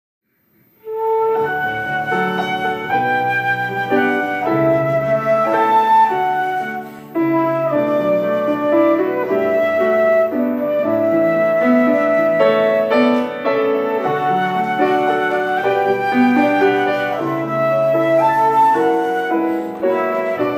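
Concert flute and grand piano playing together in a slow instrumental introduction, starting about a second in. There is a brief break in the sound about a third of the way through, then they play on.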